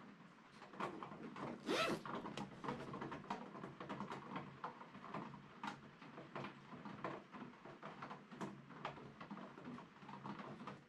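Canvas tote bag being handled: its zipper pulled open in one short zip about two seconds in, then the stiff canvas crackling and rustling as the bag is spread open.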